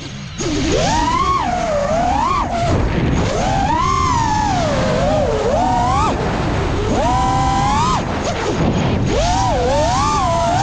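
FPV quadcopter's motors and propellers whining in flight, the pitch rising and falling again and again as the throttle is worked, over a low rush of wind noise.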